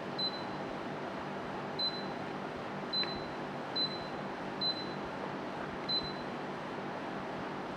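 Daikin split air conditioner's indoor unit beeping six times, short high beeps at uneven spacing, the receiver acknowledging remote-control button presses, over the steady hiss of its fan blowing air.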